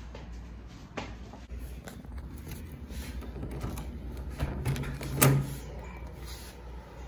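Scattered light clicks and handling knocks, then a door shutting with a sharp thump about five seconds in.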